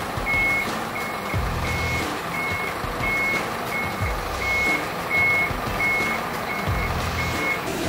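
Hino Ranger crane truck reversing slowly, its reversing alarm giving a steady high beep about every 0.7 seconds over the low running of its diesel engine.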